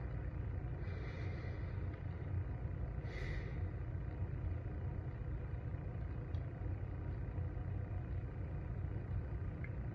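A steady low room rumble with a man's soft breaths, two short exhales about a second in and about three seconds in.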